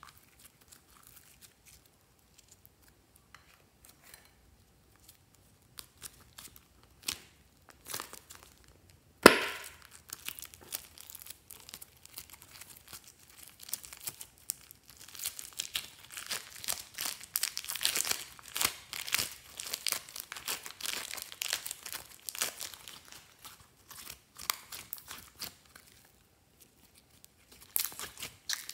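Red slime squished and stretched by hand, giving sticky crackles and pops. A few scattered clicks come first, then a sharp snap about nine seconds in, followed by a long dense run of crackling and a last short burst near the end.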